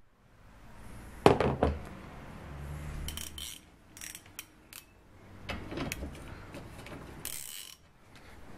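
Hand tools being handled on the car's plastic scuttle panel: a loud knock about a second in, then scattered metallic clicks and knocks as water pump pliers are set down by the wiper arm nuts, and a short hiss near the end.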